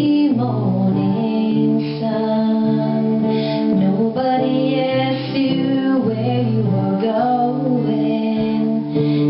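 A woman singing over a guitar, performing a cover of a rock ballad.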